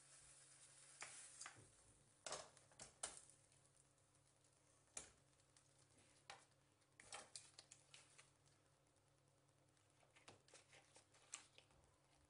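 Faint, irregular metal clicks and knocks as a cast-iron stovetop toast maker is turned on the gas-hob grate by its long handles.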